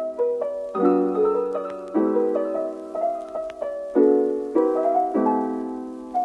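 Soft piano music: chords struck every second or two and left to ring, with lighter single notes between them.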